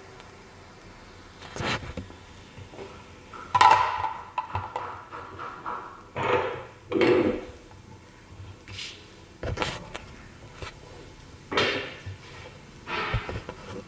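Handling noise: irregular knocks and light clatter of plastic parts on a wooden tabletop, about eight separate sounds, the loudest about three and a half seconds in.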